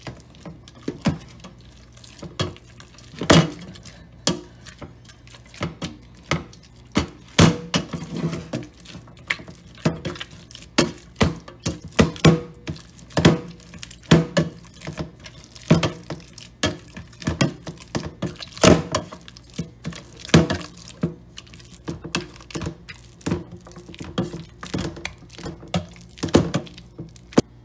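Plastic potato masher pounding boiled bananas in a stainless steel pot, knocking against the pot's bottom and sides in repeated thunks and clatters at an irregular pace, about one or two a second.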